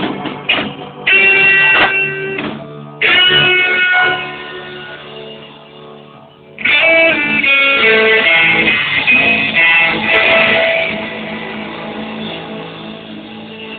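Live blues-rock band with electric guitar playing a slow blues: three big chords struck about a second, three seconds and six and a half seconds in, each left to ring and fade, the last dying away near the end, like the closing of the song.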